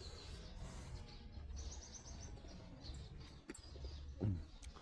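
Small songbird singing: fast high trills of repeated notes, twice, over a low steady background hum.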